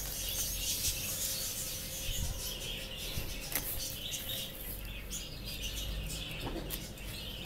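Rustling and crinkling of a plastic bag of coco-peat potting soil as a hand reaches into it, then fingers pressing loose soil into a small plastic pot.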